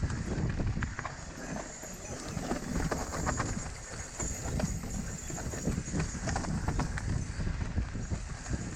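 Mountain bike rolling down a dirt trail: tyres rumbling over the ground, with many irregular clicks and knocks from the bike as it goes over roots and rocks.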